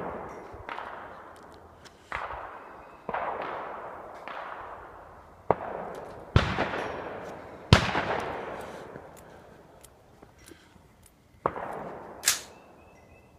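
Gunshots at an outdoor shooting range: about ten shots at irregular intervals, some louder and nearer than others, each trailing off in a long echo. There is a lull of a few seconds before two more shots near the end.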